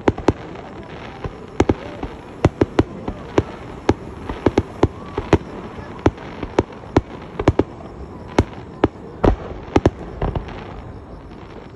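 Fireworks display: aerial shells bursting in a rapid, irregular string of sharp bangs, about two or three a second, with steady noise between them. The bangs thin out near the end.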